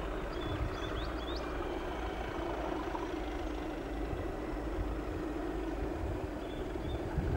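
Two Class 37 diesel locomotives working a limestone train, their English Electric engines a steady distant drone.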